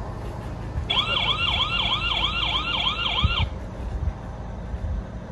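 An electronic siren sounding a fast rising-and-falling yelp, about three sweeps a second, starting about a second in and stopping after about two and a half seconds, over a low outdoor rumble.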